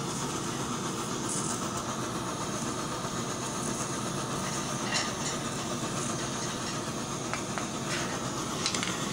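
Burner flame hissing steadily under a pot of molten babbitt metal, with a few faint light clicks.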